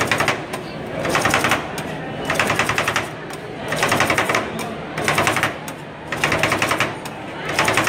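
Metal spatulas chopping ice cream mix on the cold steel plate of a rolled ice cream counter. The fast metallic clattering comes in bursts of about a second each, six in a row with short pauses between them.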